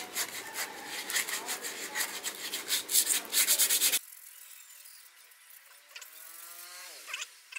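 Sandpaper rubbed by hand over a small bamboo rod section, scratchy rhythmic strokes about three a second. It stops abruptly about four seconds in, leaving a faint high squeak near the end.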